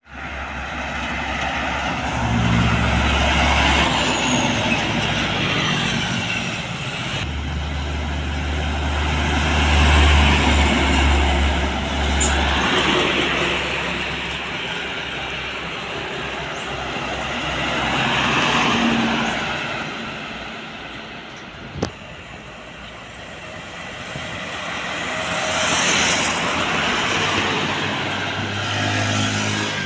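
Heavy diesel trucks passing one after another on a highway, each engine drone and tyre noise swelling as it nears and fading as it goes. A single sharp click sounds about two-thirds of the way through.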